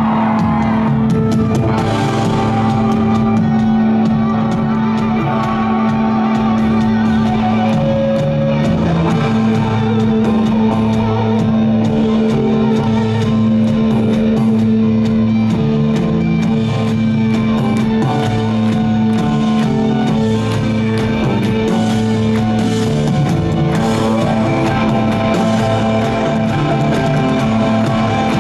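Live rock band playing an instrumental passage: electric guitars over a steady drum beat, with a held low note sounding underneath.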